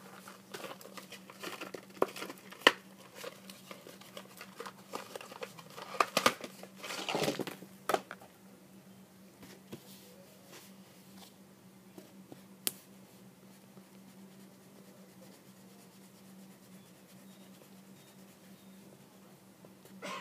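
A stack of paper being handled, rustling and crinkling, with sharp clicks and taps for the first eight seconds, then quieter with only a few ticks. A steady low hum runs underneath.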